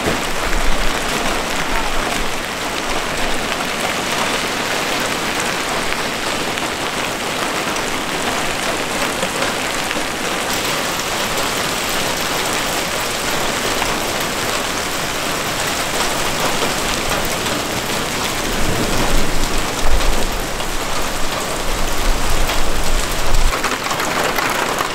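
Wind-driven hail mixed with rain hitting concrete pavement and parked cars, a steady, dense hiss of impacts. A few low rumbles rise near the end.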